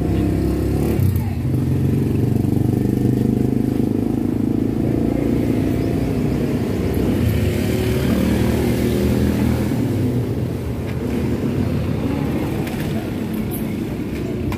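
A motorcycle engine running steadily, a low even drone with no clear revving.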